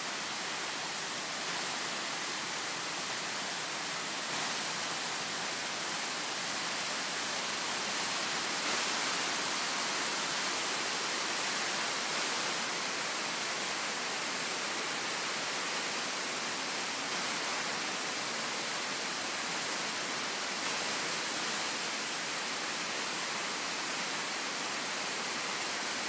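Waterfall cascading down stepped rock ledges into a pool: a steady, unbroken rushing of falling water.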